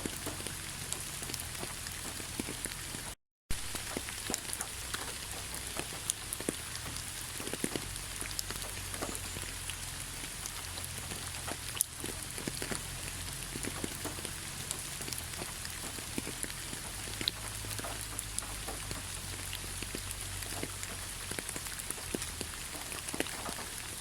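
Heavy rain falling: a steady hiss dotted with many separate drops striking close by. The sound cuts out completely for about a third of a second around three seconds in.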